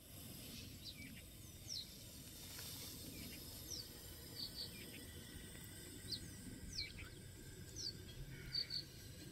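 Faint outdoor ambience with scattered short, high chirps of small birds, each falling in pitch, over a low steady background hiss.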